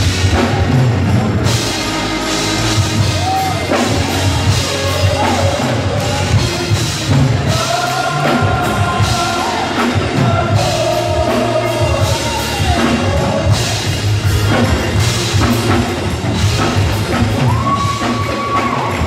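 Live gospel praise-break music from a church band, drum kit to the fore, with a group of vocalists singing and holding long notes.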